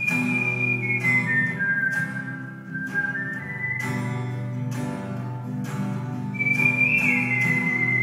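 A man whistling a slow melody into a microphone over a steadily strummed acoustic guitar. The whistled line steps downward, breaks off about five seconds in, then comes back higher and slides down near the end.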